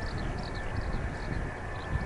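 Steady whine of the Mitsubishi F-2B's single General Electric F110 turbofan as the jet approaches at low power, under gusty wind rumbling on the microphone.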